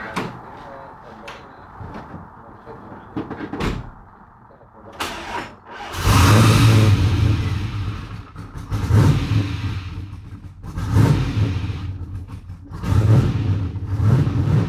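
A few sharp clicks and knocks, then about six seconds in the twin-turbo LS1 V8 of a Porsche 996 comes in suddenly and loudly. It then runs with repeated revs that swell and fall back every couple of seconds.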